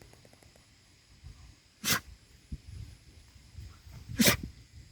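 A Bhote Kukur livestock guardian dog giving two short, sharp sneeze-like snorts about two seconds apart, the second louder.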